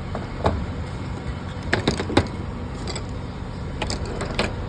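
Several sharp clicks and light knocks of hard plastic and tools being handled while getting at the glove box and cabin filter housing, over a steady low hum.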